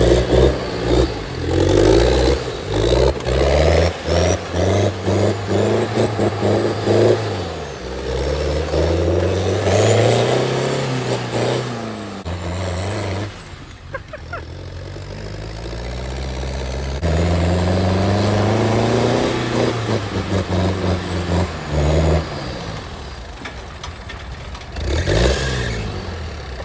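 2.2-litre turbo diesel engine from a 1983 Ford Ranger being driven hard, revving up and down again and again. The throttle is choppy and on-and-off for the first several seconds, then comes in longer climbs, with a faint high whistle that rises with the revs.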